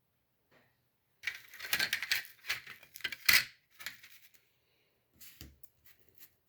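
Hard 3D-printed plastic wall panels clattering and clicking against each other as they are handled and laid together: a run of rattling knocks for about three seconds, then a few lighter clicks near the end.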